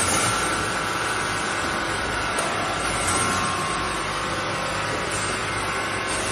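BRC wire mesh resistance welding machine running: a steady dense mechanical noise from the welder and mesh feed, with a faint steady high whine.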